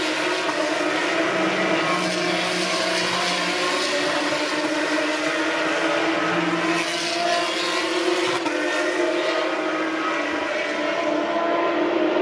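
Formula 3 racing cars' naturally aspirated 3.4-litre Mechachrome V6 engines running at high revs, the engine pitch holding fairly steady.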